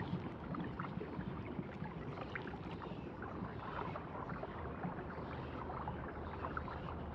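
Underwater ambience: a steady low rush of water with many small scattered clicks and crackles.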